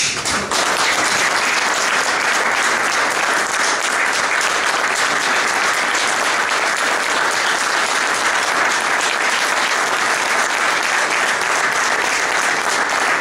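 Audience in a council chamber applauding: sustained, steady clapping that starts suddenly.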